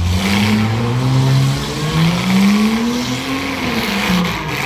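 Small demolition-derby car's engine revving, its pitch climbing and falling twice.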